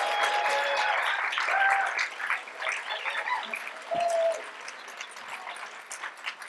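Audience applauding: a dense patter of clapping, loudest in the first two seconds and fading away over the last few seconds.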